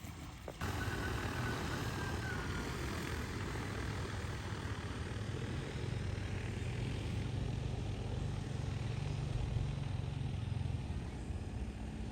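Rotors of a DJI Agras T20 crop-spraying drone giving a steady drone, coming in abruptly about half a second in.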